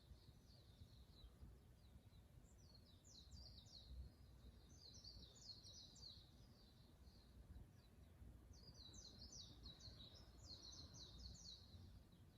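Faint, high-pitched twittering of small birds in three runs of rapid chirps, over a low, steady background rumble.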